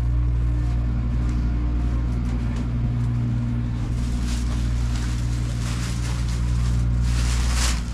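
Steady low machine hum, like an engine or generator running, with a few short scraping sounds in the second half.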